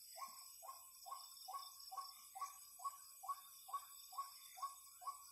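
Night animal calling: a short note near 1 kHz repeated about twice a second, evenly spaced, over a steady high insect hiss.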